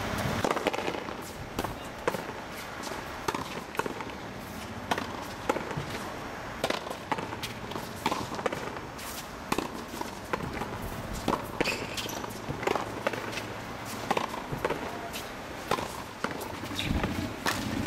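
A frontenis rally: the rubber ball cracks sharply and irregularly off racket strings, the front wall and the floor in a walled fronton court.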